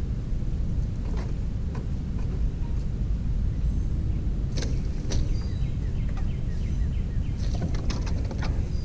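Outdoor ambience: a steady low rumble, with faint scattered bird chirps and a few sharp clicks and rustles about halfway through and again near the end.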